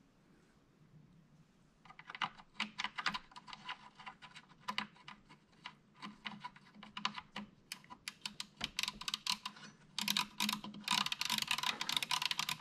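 Rapid, irregular clicking from the control shaft of a Carver PM-900 amplifier's potentiometer being twisted back and forth by hand, working the pot after cleaning to cure a sound cut-out. The clicking starts about two seconds in and comes thickest near the end.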